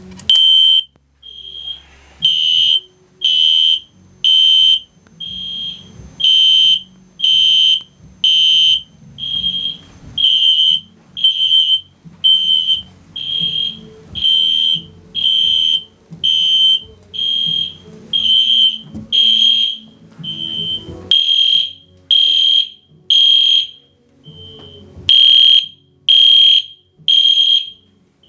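Fire alarm horn strobes, a System Sensor SpectrAlert P1224MCW and an EST Genesis G1RF-HDVM, sounding in repeated high-pitched beeps about half a second long, roughly one and a half a second. Faint music plays underneath.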